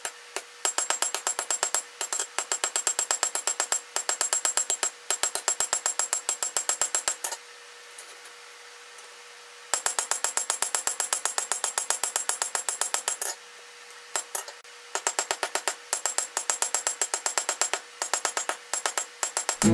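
Blacksmith's hammer striking hot 3/8-inch steel rod on an anvil in quick runs of ringing blows, about five a second, broken by two pauses of a second or two. A steady hum runs underneath.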